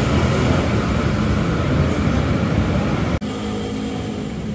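Bus and traffic noise at a metro bus station: a steady, loud rumble of engines. About three seconds in it changes abruptly to a steadier engine hum with a low steady tone, with passengers crowding at the bus door.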